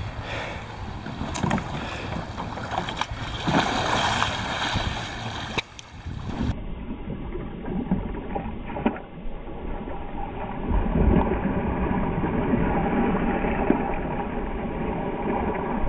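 Water sloshing and splashing around a sea kayak as it capsizes and the paddler rolls it back upright, over steady wind buffeting the microphone. The sound turns duller about six seconds in.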